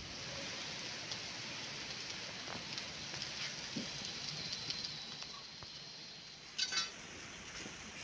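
Meat and chorizo sausages sizzling on a wood-fired grill over embers: a steady hiss with scattered small crackles. Two quick sharp clicks stand out near the end.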